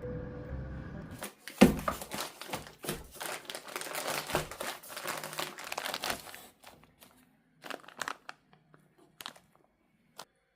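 Plastic packaging being handled, crinkling and crackling densely for about five seconds, then a few scattered crinkles and clicks.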